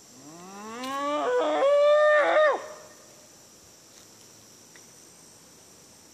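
A single loud howl: one voice glides upward in pitch for about a second, breaks into a higher held note, then falls away and stops about two and a half seconds in.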